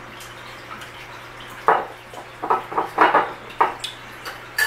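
A1 steak sauce glugging and splatting out of its glass bottle onto the food in several short bursts, then a sharp click near the end.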